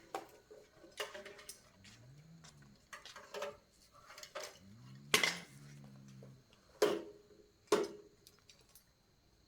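Metal pieces clanking and knocking together, a series of irregular sharp clanks with short ringing, the loudest about five seconds in.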